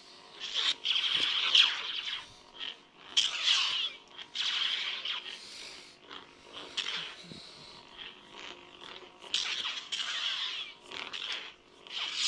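Saberforge Eris replica lightsaber with a veteran-tier soundboard playing its swing sounds as the blade is swung about: a series of whooshing swings, some in quick succession, over a faint steady hum.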